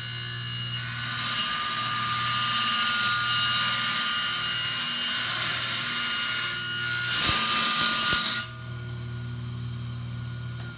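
A small power tool whining at high speed as it cuts slots into the end of a metal conduit paddle shaft. The cutting grows louder and harsher a little past halfway, then stops about two seconds before the end, leaving the motor running fainter and winding down.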